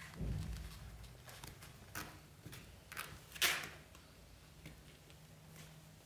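Kittens scuffling in a fabric play tent: a soft low thump near the start, then a few short scratchy rustles of paws on the fabric, the loudest about three and a half seconds in.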